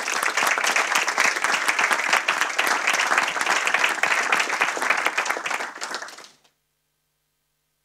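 Audience applause: many hands clapping together, tapering off and stopping about six and a half seconds in.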